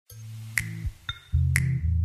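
Background music with a steady bass line and a sharp snap about once a second.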